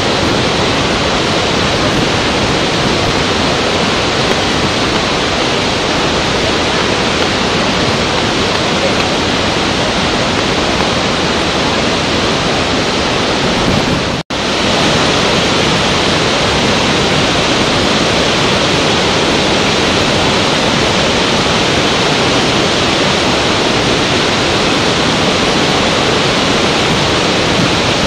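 Large waterfall and rapids: a steady, even rush of falling water. It cuts out sharply for a split second about halfway through, then resumes.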